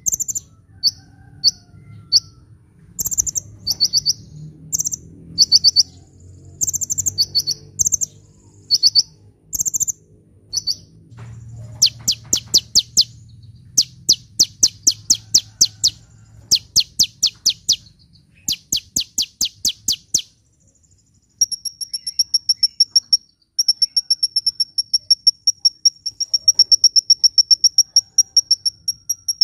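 Sunbird (kolibri) song: short, rapid, high-pitched chirp phrases, then fast clicking trills from about twelve seconds in. From about twenty-one seconds a steady, evenly pulsed high trill takes over, like a cricket's.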